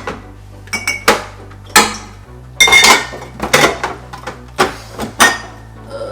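Drink containers and kitchenware being picked up and set down on a kitchen counter: a string of about eight sharp clinks and knocks, some ringing briefly.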